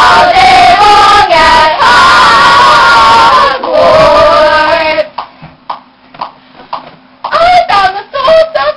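Young voices singing together without instruments, loud; the singing drops away about five seconds in and starts again about two seconds later.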